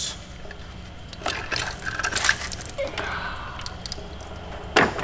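Cylinder head of an Audi 3.0T supercharged V6 being worked loose from the block: scattered metal clinks, a wet trickle and squish of coolant, and a sharp knock near the end.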